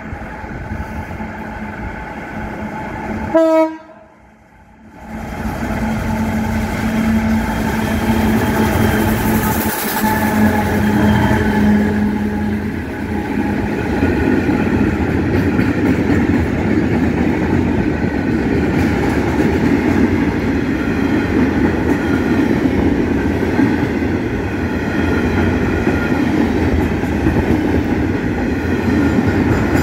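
Freight train hauled by VL-class diesel locomotives running through a station: a loud horn blast about three and a half seconds in. Then a long train of empty steel wagons rolls past with a steady loud rumble and wheels clattering over the rail joints.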